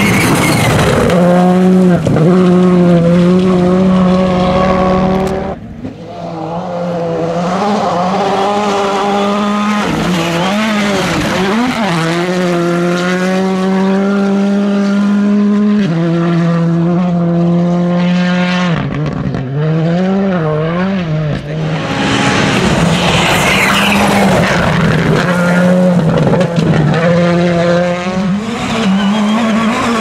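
Rally2 cars with turbocharged four-cylinder engines driven flat out on a loose gravel stage, one car after another. The engine notes are held high with quick wavering lifts and gear changes, and gravel crunches and sprays under the tyres.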